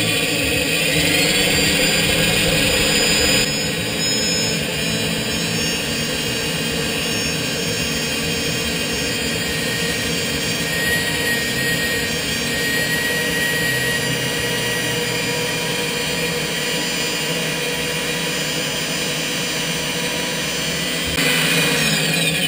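Benchtop drill press motor running steadily while its 5 mm bit mills out the inside of a block of XPS foam.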